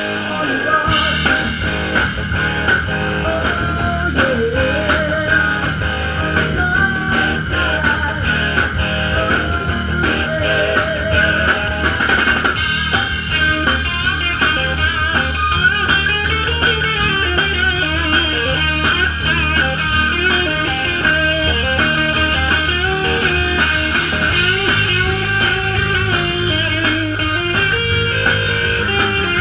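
Live rock band playing, with electric guitar to the fore over drum kit, bass guitar and keyboard.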